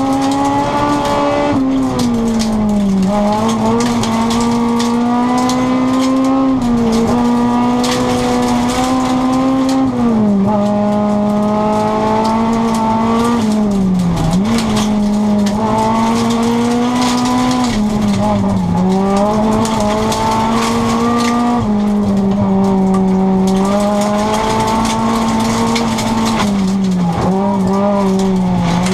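Rally car engine heard from inside the cabin, running hard at high revs on a special stage. Its note drops briefly about five times and climbs back again, over a constant haze of road noise.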